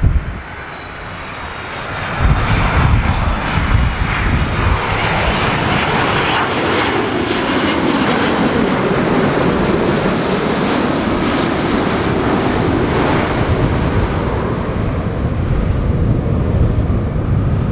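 Boeing 767's twin jet engines on final approach, passing low overhead. The noise swells in about two seconds and stays loud, with a faint steady high whine. The sound sweeps down in pitch as the jet goes over, then the high end fades as it moves away towards touchdown.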